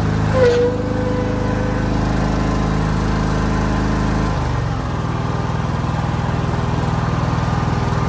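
Small engine running steadily close by, its speed dropping about four seconds in and then holding steady at the lower pitch.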